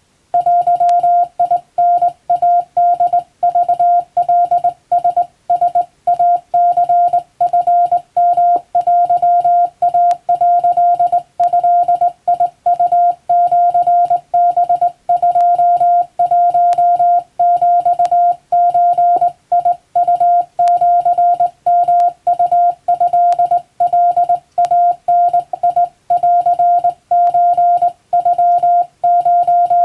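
Japanese wabun Morse code keyed by hand as a single steady beep tone, switched on and off in quick dots and dashes with short gaps between characters. It starts about a third of a second in.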